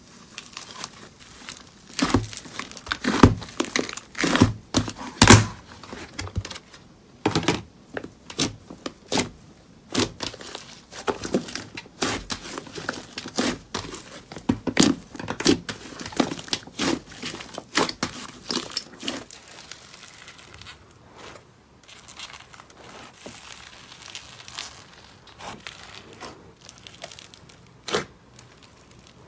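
Slime being squished and pulled by hand, giving irregular sticky pops and crackles, busiest in the first two-thirds and sparser near the end.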